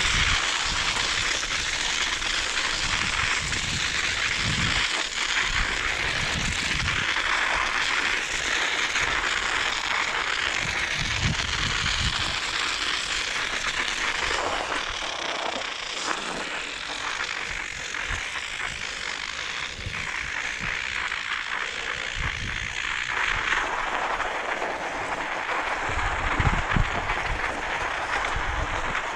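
Bicycle riding over snow: a steady crackling hiss of tyres on the snowy surface, with wind buffeting the microphone in gusts, strongest near the end.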